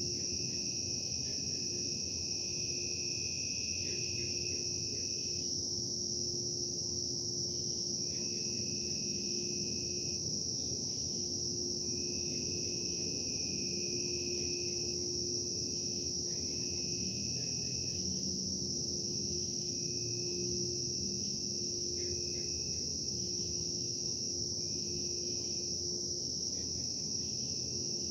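Steady low hum and rumble of industrial production machinery under a continuous high-pitched whine. A second, lower whistling tone comes and goes throughout, each time lasting one to two seconds with short gaps between.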